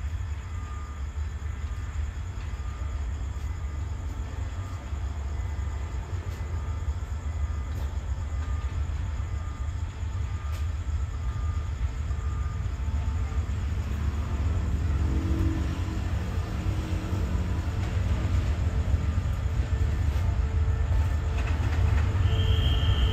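A CRRC Qishuyan (QSY) diesel-electric locomotive rumbles as it draws the express train in, its low rumble growing louder as it nears. From about halfway an engine drone rises above the rumble, and a high squeal starts near the end. A faint beep repeats through the first half.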